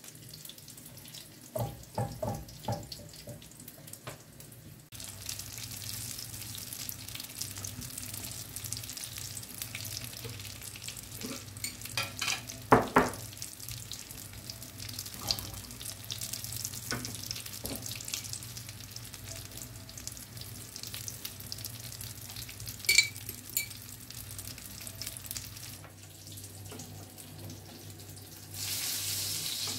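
Zucchini fritter batter frying in a pan of hot oil: a steady sizzle sets in about five seconds in, with a spoon clinking against the pan now and then, loudest in a quick cluster about halfway through. Near the end a louder rushing hiss sets in.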